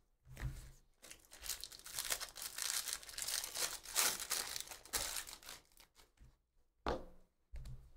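Foil wrapper of a Bowman Draft baseball card pack being torn open and crinkled, a dense crackle lasting about four seconds. Near the end come two short, soft knocks.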